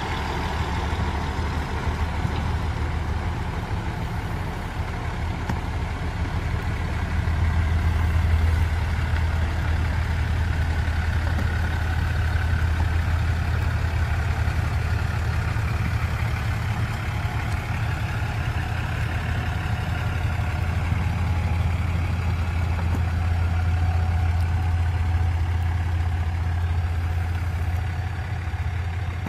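Heavy truck engine running steadily under load as it tows a house on a trailer slowly along the road, a continuous low drone.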